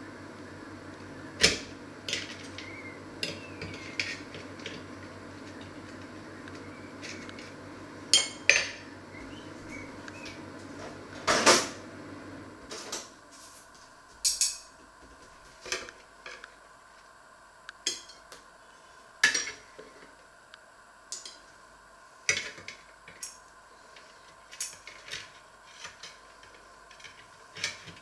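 A metal fork clinking and scraping against a metal oven tray and a china plate as fried potato slices are picked up, in scattered sharp clinks and knocks. A steady background hum stops about halfway through.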